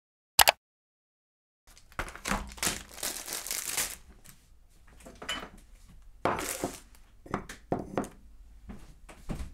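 A short sharp sound effect about half a second in, then plastic food packaging crinkling and rustling as it is handled, followed by several light knocks as eggs are set down on a wooden egg holder on a wooden table.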